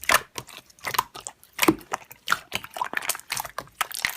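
Slime being squeezed and played with by hand: a quick, irregular run of wet clicks and pops.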